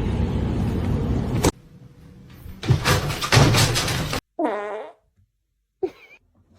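A low buzzing rumble that stops abruptly, then rustling with a few knocks, then a house cat meowing briefly twice near the end.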